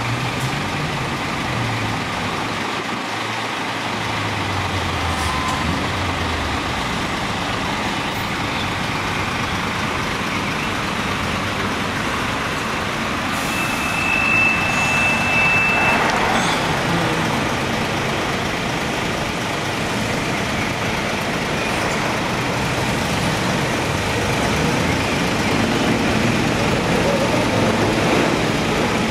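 Diesel engines of heavy trucks, among them a Scania V8 tractor unit, running as the trucks queue and crawl past. About halfway through a high squeal lasts a couple of seconds, as the sound is at its loudest.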